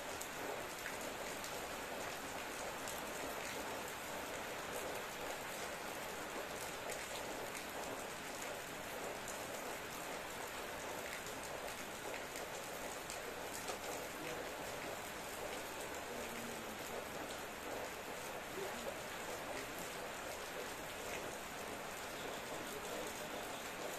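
Steady rain falling, with a dense hiss of drops and many small individual drop taps on a surface.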